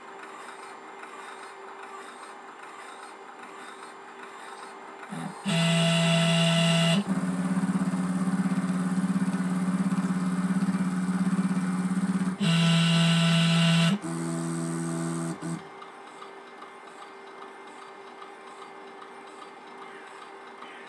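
CNC milling machine's axis drive motors moving the table during a probing cycle to find a cylinder's centre with a 3D touch probe: a steady pitched motor whine starts about five seconds in and runs for about ten seconds, twice louder and brighter for a second or so, steps up in pitch near the end and then stops, leaving a faint steady machine hum.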